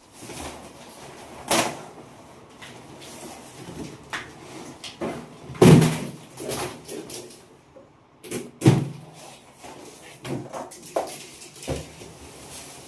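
Irregular knocks and thuds with scraping in between, three of them louder than the rest, like objects or a door being handled.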